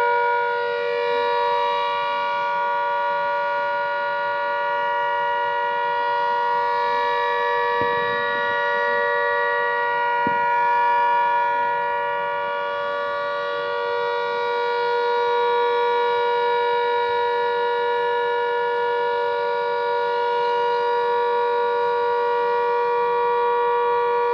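Civil-defence air-raid siren sounding one long, steady blast of several tones at once, swelling and easing slightly in loudness. It is the blackout alert of a civil-defence drill.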